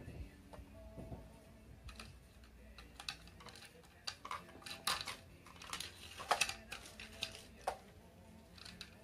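Wooden alphabet blocks clacking against each other and the table as a toddler handles and stacks them: a scatter of small hard knocks, thickest from about three to eight seconds in.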